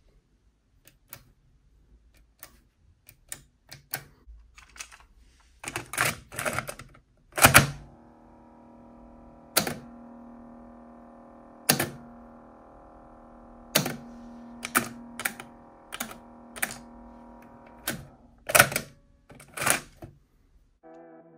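A run of sharp mechanical clicks and clunks, a dozen or more, irregularly spaced. A steady pitched drone sits underneath from about 8 seconds in until just before the end.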